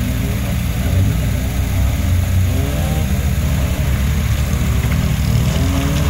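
Classic Lada sedan's engine revving as the car accelerates past and pulls away, its pitch rising and falling with the throttle over a constant low rumble.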